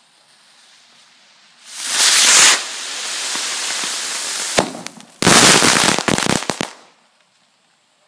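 A 6-inch rocket firework buried in the ground ignites about two seconds in with a loud rushing hiss that burns for about three seconds while smoke pours out of the earth. A sharp crack follows, then about a second and a half of rapid crackling pops, which cut off suddenly.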